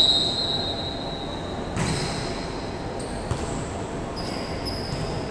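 Sneakers squeaking on a hardwood gym floor during a volleyball rally: one long high squeal at the start that fades over about a second, and a few shorter squeaks near the end. There is a single thump about two seconds in, likely a ball being hit.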